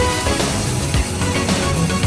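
Background music with a steady beat, overlaid on the ride; no train sound stands out above it.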